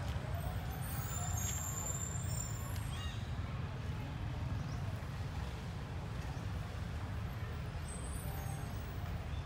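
A steady low rumble, with faint high chirps in the first few seconds.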